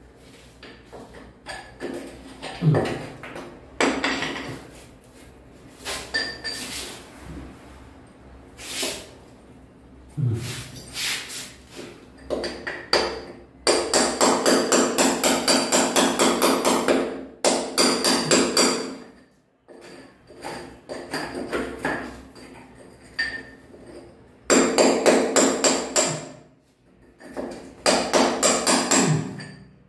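Hammer driving a steel chisel into ceramic wall tile and concrete. It strikes in scattered blows, then in fast runs of about five blows a second, chipping the wall away.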